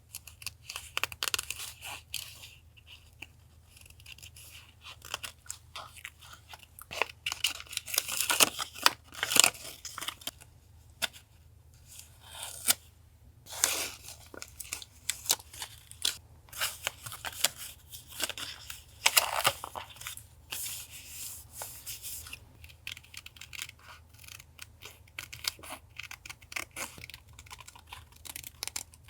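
Paper being handled for a journal collage: irregular crisp rustles, tearing and light taps in short bursts, louder in a couple of spells.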